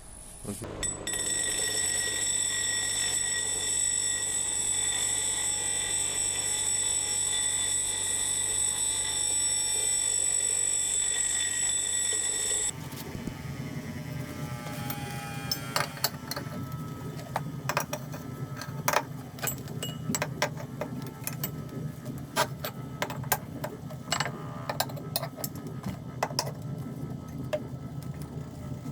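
Metalworking machinery in a workshop: a steady high-pitched whine for about twelve seconds, then an abrupt change to a lower running sound with scattered sharp clicks and scraping.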